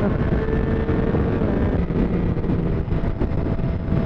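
Motorcycle running at highway speed, its engine and road noise partly buried by wind buffeting the helmet-mounted microphone, with a large truck running close alongside.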